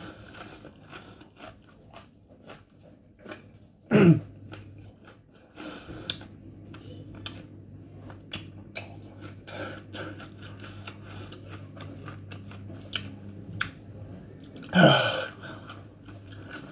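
A person chewing crunchy corn chips, a run of small crunches and mouth clicks. About four seconds in and again near the end come two loud, short voice sounds from the eater, each falling steeply in pitch.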